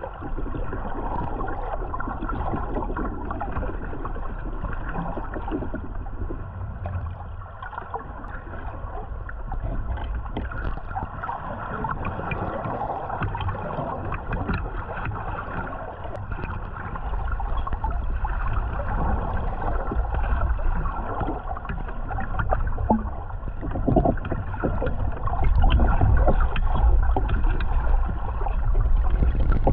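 Muffled underwater water noise picked up by a submerged camera: a steady wash with gurgling and scattered low thumps, louder in the last few seconds.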